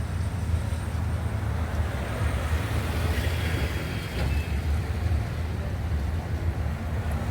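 Steady low rumble of a vehicle in motion, with no clear events.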